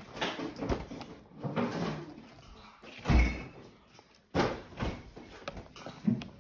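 A plastic fork knocking and scraping on a plastic plate and high-chair tray as a toddler eats, in a string of uneven clatters. A heavy thump about three seconds in and a sharp knock just after four seconds are the loudest.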